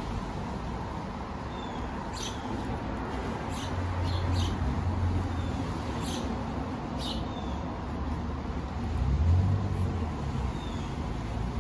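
A low rumble of traffic that swells twice, with a few short, high ticks scattered through it.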